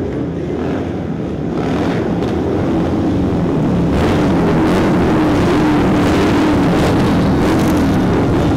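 A group of cruiser motorcycles riding past together, their engines running loudly and steadily. The sound grows louder about two seconds in.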